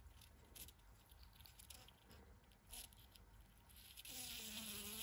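Caged Russian honey bees, a queen with her attendant workers, buzzing briefly near the end: a steady pitched hum that starts about four seconds in and lasts about a second. Before it, near silence with a few faint clicks.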